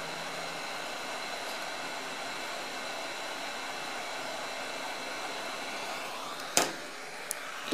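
Hot air rework gun blowing steadily while it reflows the solder under a chip, with a sharp click a bit over six seconds in and a smaller tick just after.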